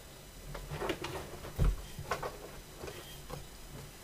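Light clicks and knocks of small resin model parts handled on a tabletop cutting mat, with one dull thump about one and a half seconds in, over a faint low hum.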